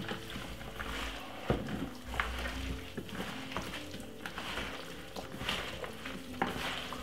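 Wet squishing and rustling of hands in plastic gloves mixing chicken pieces, potato and carrot through a marinade in a plastic bowl, with a few sharp clicks.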